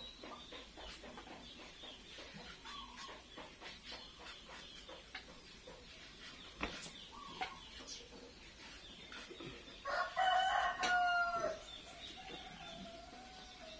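A rooster crows once, a long call of about a second and a half, around ten seconds in. Before it come a couple of short chicken clucks and scattered light clicks.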